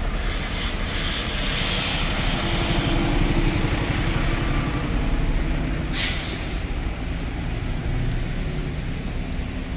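City bus engines idling in a steady low rumble. About six seconds in, a bus's air system lets out a sharp hiss of released air that trails off over a second or so.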